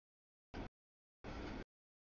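Freight train cars rolling past on the rails, a steady rushing noise heard in two short bursts that cut in and out abruptly, with dead silence between.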